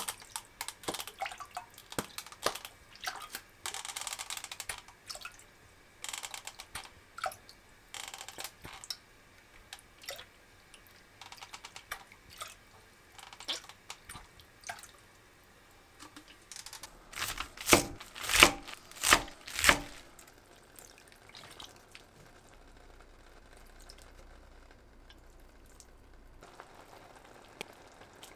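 Liquid seasoning poured from a bottle into a metal measuring spoon, spoonful after spoonful, and tipped into a clay pot of water, with trickles, drips and small splashes. A run of louder splashes and knocks comes past the middle, then a faint steady hiss.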